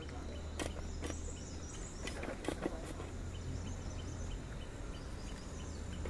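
Outdoor ambience with a steady low rumble, faint high bird chirps and a few sharp clicks and knocks as wooden hive parts and a smoker are handled.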